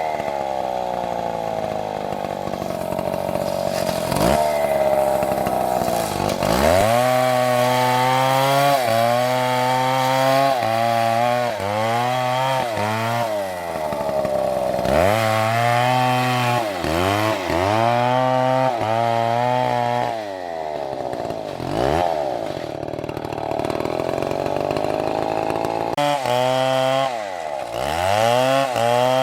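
STIHL two-stroke chainsaw running at high revs, its pitch dropping and climbing back again and again through the stretch.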